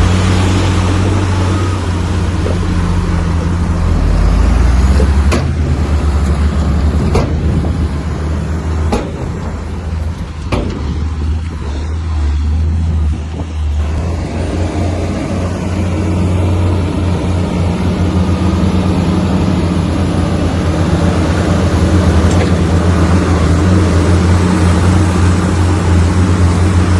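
Heavy diesel engine of earthmoving machinery running steadily under load. It eases off briefly about halfway through, then comes back up. Several sharp knocks come in the first half.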